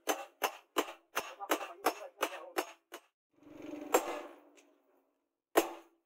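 Hand hammer forging a red-hot knife blade of truck leaf-spring steel on a steel post anvil, ringing blows at about three a second. After a short break, two single strikes about a second and a half apart, as a hammer drives a chisel held in tongs to cut the blade's outline.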